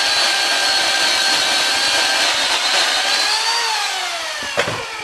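Electric chainsaw motor running with a steady high whine, then released so that it winds down, falling in pitch, over the last second and a half. A single knock about four and a half seconds in.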